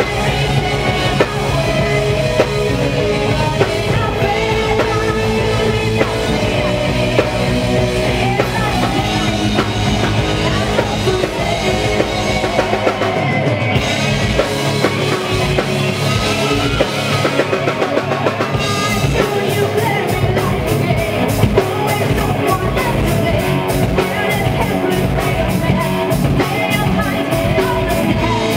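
A folk metal band playing live: distorted electric guitars, bass and a drum kit, with a woman singing lead. A little before halfway the lowest notes thin out, and the drums go over to fast, evenly spaced hits.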